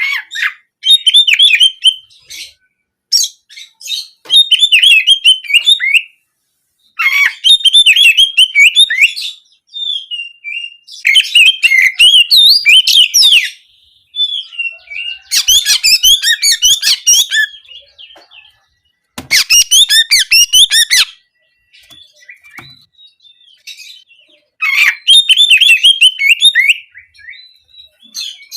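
Oriental magpie-robin (kacer) singing in repeated bursts of rapid, intricate canary-like phrases, each lasting a second or two, separated by short pauses with a few fainter single notes between.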